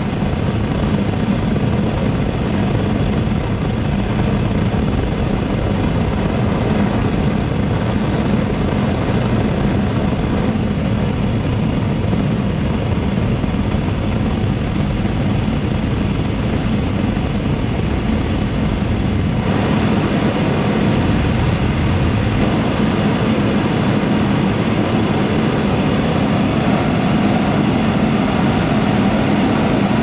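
Propane Frosty T venturi burner burning steadily with a loud, even rushing noise as its blue flame heats a steel pipe. About two-thirds of the way through the noise changes slightly and abruptly, then carries on just as steadily.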